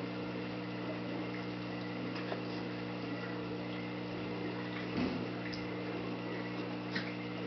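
Steady low electrical hum of aquarium equipment, with a faint hiss, a few light clicks and a soft bump about five seconds in.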